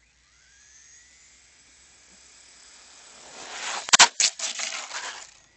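High-pitched whine of an ECX Torment RC truck's 4000kv brushless electric motor, rising a little in pitch and growing louder along with tyre and gravel hiss. About four seconds in there is a cluster of loud sharp knocks, and the sound then cuts off abruptly.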